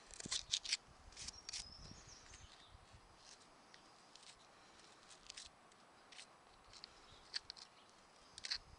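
Hoof pick scraping stones and packed dirt out of a mule's hoof in a series of short, sharp scrapes, several in quick succession in the first second or so, then scattered strokes and a louder pair near the end.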